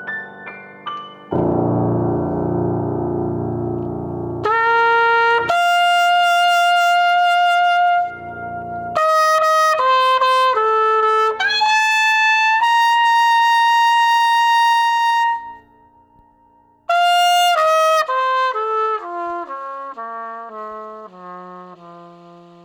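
Jazz trumpet playing long held notes, then a stepwise descending line that fades out. A dense sustained chord sounds under it for the first few seconds.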